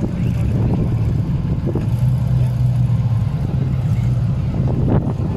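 Off-road 4x4's engine running steadily at low revs, a loud, even low drone.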